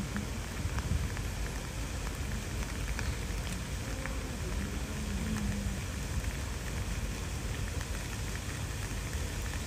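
Steady outdoor background noise: an even hiss over a low rumble, with a few faint ticks and a faint wavering sound in the middle.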